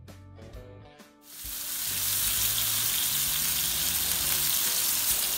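A short stretch of plucked guitar music, then, about a second and a half in, a steady loud sizzle: floured horse mackerel on skewers frying in hot oil in a pan.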